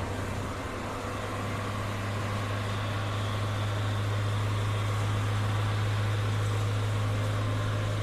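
A 2008 Chevrolet Meriva 1.8 engine idling steadily, warmed nearly to operating temperature, with the radiator fan not yet switched on.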